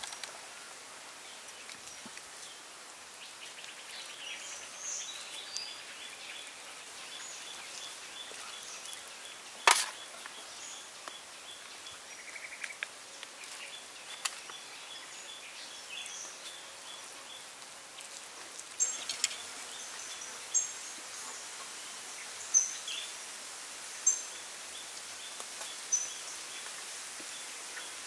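Outdoor ambience with birds chirping: scattered short high calls and fast trills, and in the second half one short call repeated every second or two. A single sharp click sounds about ten seconds in.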